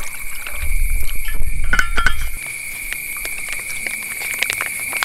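Liquid poured over ice cubes in a metal camping mug, loudest for about two seconds near the start, with ice clinking and ticking as it shifts. Near the end a second, quieter pour trickles in from a squeezed pouch.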